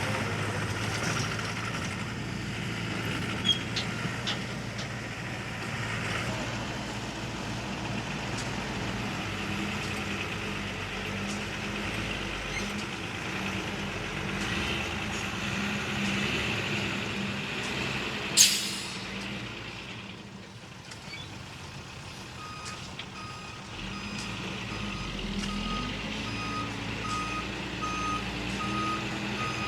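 Heavy dump truck's diesel engine running, with one short loud hiss of air about two-thirds through. Then the reversing alarm starts beeping at an even pace while the engine revs up.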